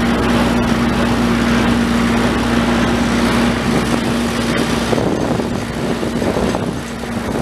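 Small railway locomotive's engine running steadily as it pushes wagons loaded with rails along narrow-gauge track, mixed with the rumble of the moving train. A steady hum weakens about five seconds in.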